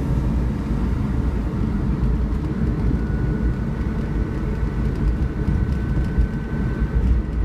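Steady road and engine noise heard from inside a moving car: a low rumble, with a faint thin whine for a few seconds in the middle.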